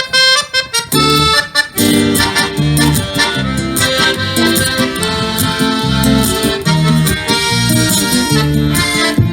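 Accordion playing an instrumental introduction to a song, with held chords over a rhythmic bass line. A few short chords in the first second or so, then continuous playing.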